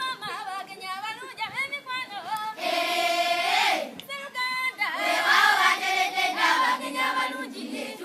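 A group of voices singing together, with a long held note in the middle of the passage.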